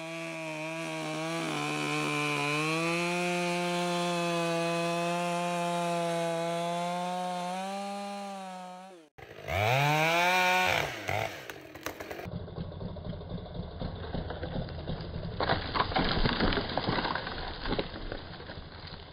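Two-stroke chainsaw running at full throttle in a cut, its pitch steady, then dying away; about nine seconds in it revs and drops off the throttle. After that comes a rougher chainsaw sound with a run of sharp cracks of breaking wood near the end.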